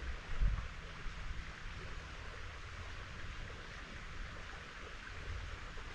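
Steady rush of running stream water, with wind buffeting the microphone in low rumbles and one stronger gust about half a second in.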